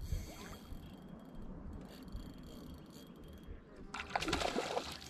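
A hooked trout thrashing and splashing at the water's surface, one brief splash about four seconds in, over a faint low rumble.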